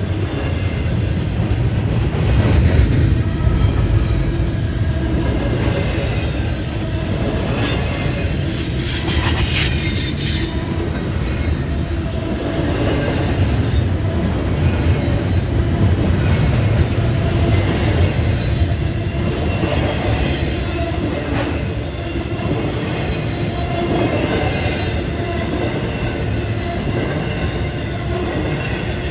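A train rolling past, its cars clacking steadily over the rail joints, with a high wheel squeal about ten seconds in.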